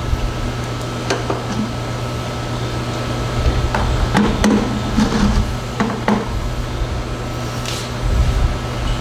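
Scattered clicks and knocks from hand tools and parts being handled while a motorcycle front fork is taken apart, mostly in the middle few seconds, over a steady low hum.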